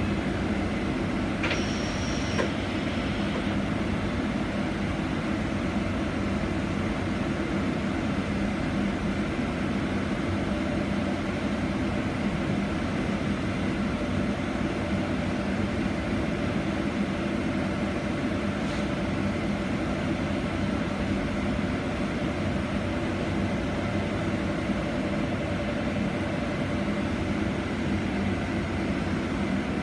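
Cabin noise inside a Proterra Catalyst BE35 battery-electric bus: a steady low hum and rumble. A brief high-pitched squeal comes about two seconds in, and a faint steady whine runs through the second half.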